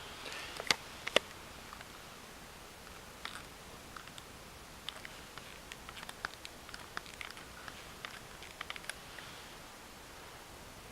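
Two sharp clicks less than a second in, then scattered light clicks and ticks for several seconds.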